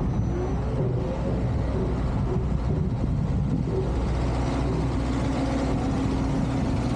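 Steady low engine rumble of a motor vehicle such as a truck or bus, with a steady hum coming in about halfway through.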